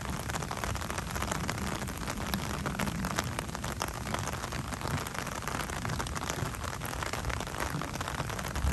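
Steady rain falling in a thunderstorm, a dense patter of drops over a constant low rumble.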